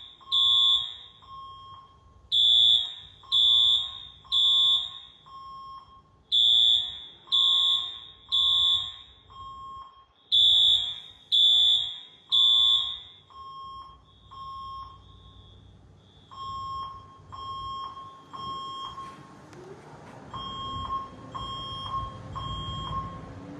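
Building fire alarm sounding the temporal-three evacuation signal during a test: three blasts, a pause, three again, about every four seconds. The loudest, nearest horn stops about halfway through, while a fainter horn keeps the same three-blast pattern going.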